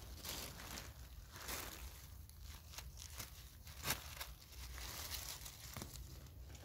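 Dry beech leaves rustling and crackling as a hand works through the leaf litter, with one sharper snap about four seconds in as a small porcini mushroom is pulled from the ground.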